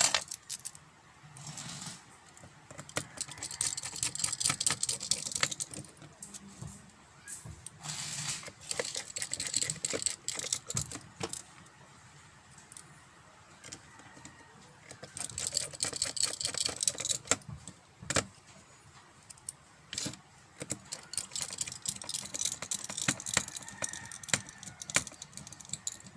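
Handling noise of the finished USB-rechargeable flashlight: repeated clicks, taps and small rattles in several bursts, with quieter gaps between.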